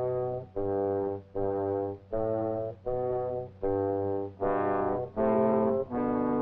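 Brass music: a slow line of separate, detached held notes, about one and a half a second and changing in pitch, over a low bass part, growing louder and brighter about two-thirds of the way through.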